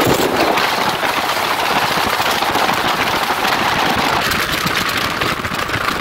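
Wind rushing past the open window of a moving car, with road noise: a steady, crackly rushing noise that comes in abruptly.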